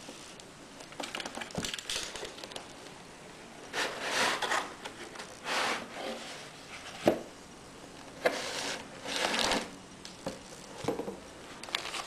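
Packaging being handled during an unboxing: plastic wrapping crinkles in short irregular bursts against cardboard, with a sharp knock about seven seconds in.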